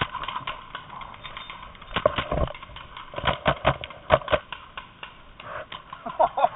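Paintball markers firing: sharp pops in four quick bursts of several shots each, over the first four or so seconds.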